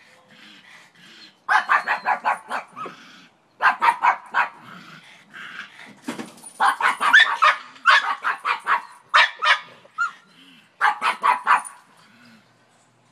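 Pug barking at a lawn mower in about five volleys of rapid barks, several barks a second, with short pauses between them.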